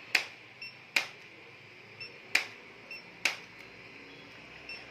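Handheld chiropractic impulse adjusting gun firing, a series of sharp clicks: four loud ones roughly a second apart, with fainter clicks between.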